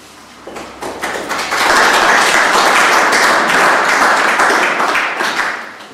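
Audience applauding: the clapping builds up within the first second, holds steady, and dies away near the end.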